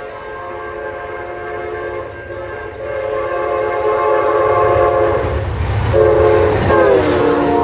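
Amtrak P42DC diesel locomotive approaching and sounding its multi-note air horn in long and short blasts. The horn chord drops in pitch near the end as the locomotive passes, and the engine's rumble grows louder as it nears.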